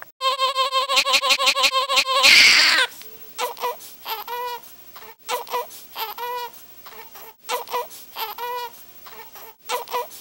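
Swaddled newborn baby crying: a fast, quavering wail for about two seconds, then a brief loud rush of noise, then a string of short cries about once a second.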